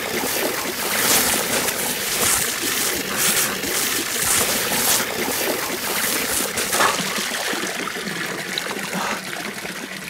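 A jet of water spraying and splashing onto a person's face and hands, a dense hissing splatter that eases off over the last couple of seconds into a lighter trickle of water.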